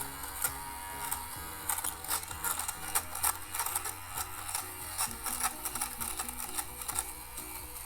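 Xiaomi Mijia rechargeable lint remover running, its motor humming steadily while the blade head is rubbed over pilled clothing fabric, giving irregular scratchy rasps as lint is shaved off.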